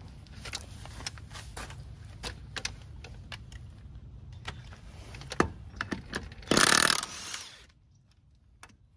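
Scattered clicks and clinks of hand tools being handled, then near the end a cordless impact wrench runs in one short loud burst on a wheel lug nut and trails off.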